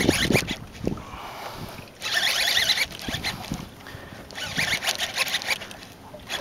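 Fishing reel working under load as a hooked bass is fought: two spells of reel whirring, about two seconds in and again near the end, over light handling knocks.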